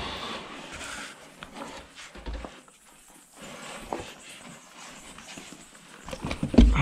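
Footsteps, scuffs and knocks on rock as a person climbs down through a cave passage, with a heavy thump about six and a half seconds in.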